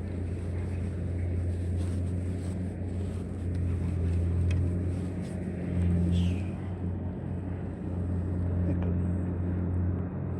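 A steady, low engine drone that swells and eases a little, with a short high falling chirp about six seconds in.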